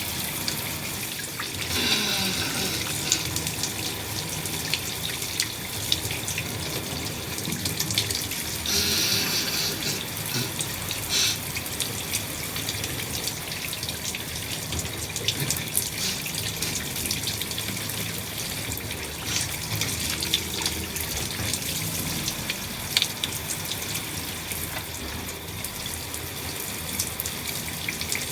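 Shower water spraying steadily, with short louder bursts about two seconds in and about nine seconds in.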